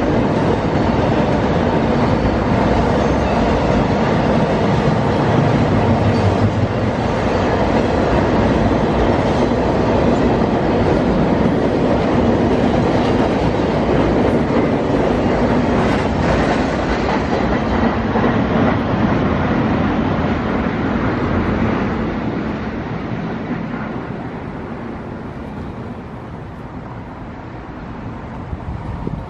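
Intermodal freight train's container cars rolling by on the rails with a steady clickety-clack of wheels over the track. The sound fades away over the last several seconds.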